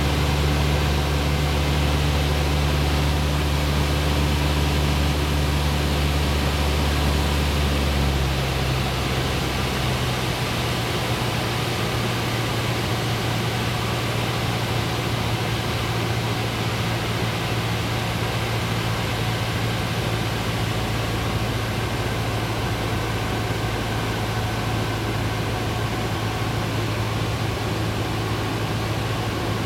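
Cessna 172's engine and propeller droning steadily, heard from inside the cabin. About eight seconds in the deep tones of the drone shift and it gets slightly quieter, then holds steady.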